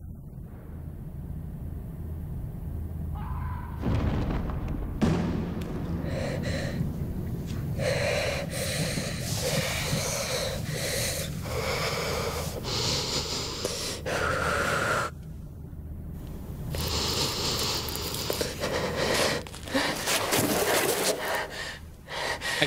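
A woman breathing hard, a string of heavy breaths and gasps with a short lull about fifteen seconds in, over a low steady drone.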